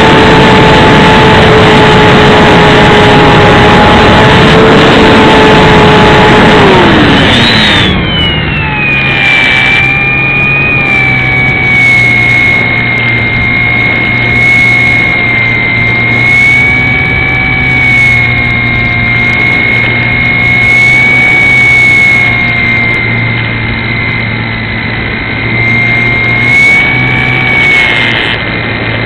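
Electric motor and propeller of an XK DHC-2 A600 RC plane in flight, heard from a camera on the plane: a loud whine in heavy wind noise, then about seven seconds in the throttle is cut back and the pitch falls steeply. A steady high whine and a low hum carry on at the lower throttle.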